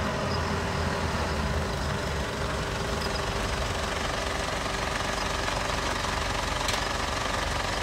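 A steady mechanical rumble, like an engine running, with a faint steady hum on top.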